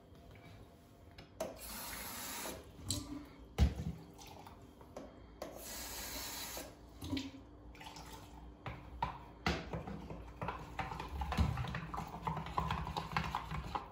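Kitchen tap running in two short spells, with a sharp knock between them and small clinks and clatter of kitchenware after.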